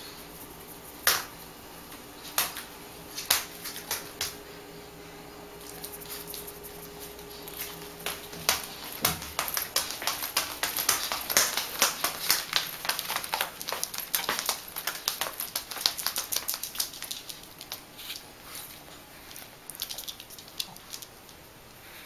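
A Shih Tzu's dog shoes tapping on a hard laminate floor as it walks. Scattered single taps at first, then a fast, dense clatter from about nine seconds in that thins out near the end.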